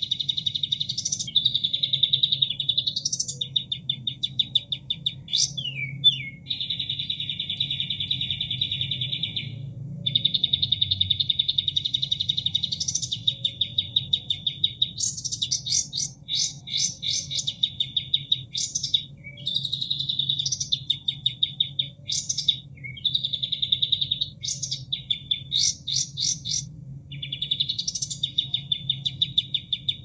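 Kapas tembak songbird singing in a looped tutor recording: long, rapid trills held for a few seconds at a time, broken by quick rising whistled sweeps and bursts of repeated chips. Under the song runs a steady low rush of flowing water.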